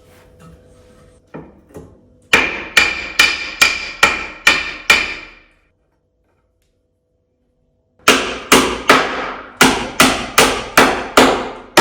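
Hammer blows on wood, struck at a steady rate of about two a second: a run of about seven, a short break, then another run starting about two-thirds of the way in.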